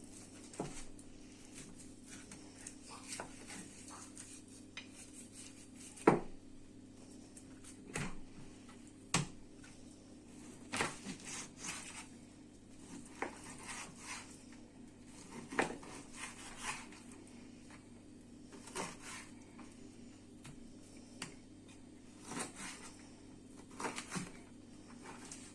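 Kitchen knife cutting raw beef into pieces, the blade knocking on the cutting board in irregular strokes, the loudest about six seconds in.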